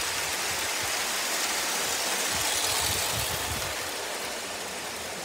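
Live-steam O gauge model locomotive passing with its train: a steady steam hiss that swells about halfway through, then fades as it goes by.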